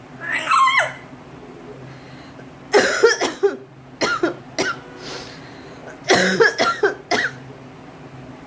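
Several short bouts of coughing: a person coughing and a pet copying the coughs back.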